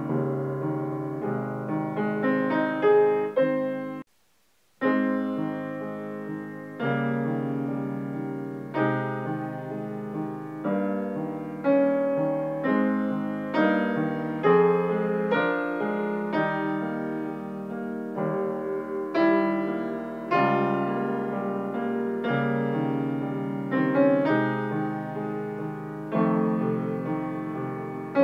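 Grand piano being played: a flowing passage of chords and runs, each new chord struck every second or two. About four seconds in the sound cuts out completely for under a second, then resumes.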